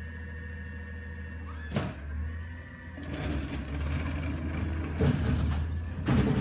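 McNeilus ZR automated side-loader garbage truck working a curbside cart: the engine hums steadily, then works harder from about three seconds in as the hydraulic arm lifts the cart. There is a sharp knock early on, and two loud bangs about five and six seconds in as the cart is dumped and shaken against the hopper.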